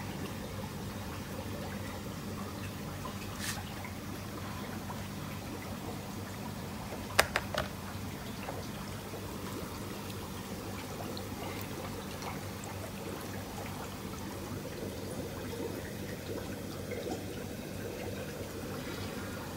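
Water trickling and pouring in a shrimp post-larvae tank over a steady low hum. A quick cluster of sharp clicks about seven seconds in.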